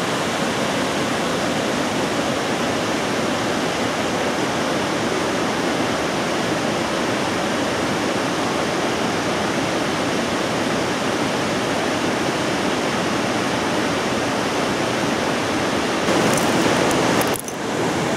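Steady rush of a fast white-water glacial river tumbling over rocks in a gorge below, heard from high above.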